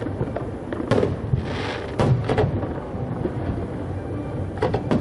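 Aerial firework shells bursting: sharp bangs about a second in, twice around two seconds, and a quick cluster near the end, over a continuous low rumble. A crackling hiss comes between the first bangs, typical of crackling or glitter stars.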